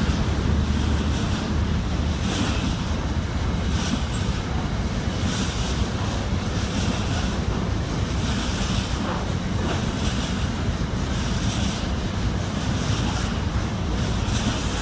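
Long container freight train rolling past at speed: a steady rumble with a pulse repeating about every second and a half as the wagons go by, with wind on the microphone.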